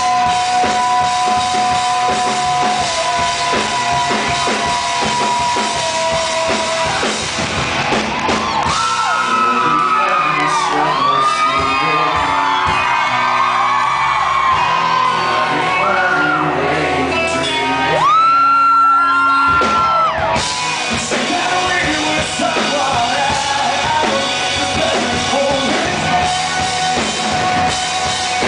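Live rock band with a male lead singer. Held vocal notes over drums at first. About eight seconds in, the drums drop out for a stretch of bending, sliding melody lines and one long high held note, then the full band comes back in with drums.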